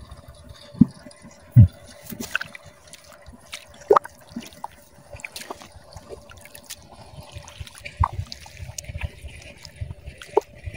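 Water dripping and splashing in a flooded rice paddy as a hand pulls up and handles clumps of dead weeds. Scattered small clicks and drips run through it, with a few dull thumps in the first two seconds.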